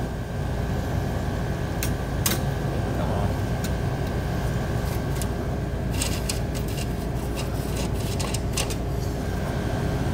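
Emerson Quiet Kool 19,000 BTU window air conditioner running in cooling mode: a steady hum of its fan and rotary compressor, with a couple of steady tones over it. Sharp clicks and light plastic rattles come about two seconds in and again between about six and nine seconds in.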